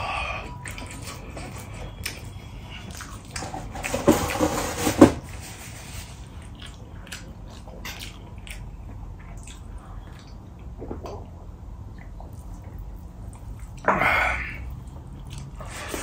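Close-up eating sounds of a person eating rice and curry by hand: chewing and smacking with many small wet clicks. There is a louder wet slurp about four seconds in and another near the end.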